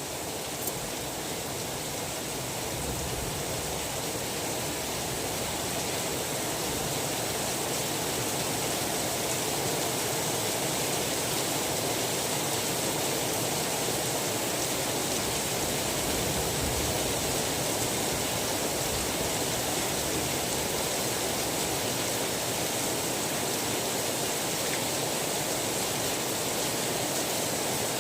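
Steady rain hiss, an even wash of noise that rises gently in level over the first several seconds and then holds steady.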